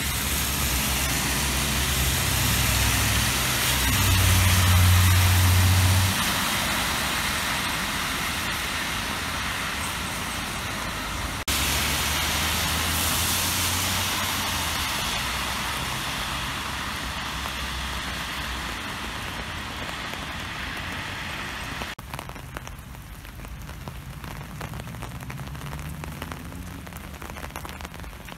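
Steady hiss of rain with cars driving past on the wet road, a low rumble of passing traffic loudest about four to six seconds in. The sound changes abruptly twice, and near the end only lighter rain on the pavement remains.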